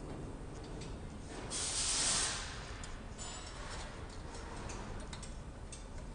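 A short hiss of air lasting under a second, about one and a half seconds in, among scattered light clicks and taps of tool work on the machine.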